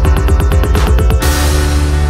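Electronic dance-style background music: a fast pulsing synth beat that stops a little over a second in, giving way to a rushing swell and held synth chords.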